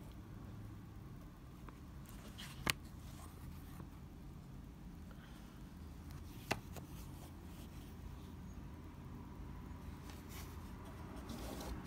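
Quiet handling of a cloth-bound book by hand as its cover is opened and the book turned over: soft rubbing and rustling, with two sharp clicks about four seconds apart.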